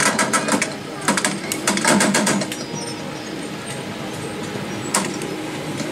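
Small model railway train running on the layout: a steady mechanical whir from its small electric motor, with a run of sharp clicks and clatter in the first couple of seconds.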